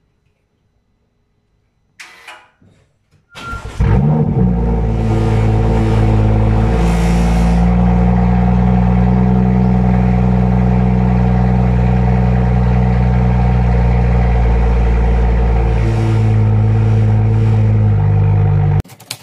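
BMW M2's turbocharged straight-six being started: a brief crank, then it catches with a quick rev flare and settles into a loud, steady idle that steps down slightly a few seconds later. The engine sound cuts off suddenly near the end.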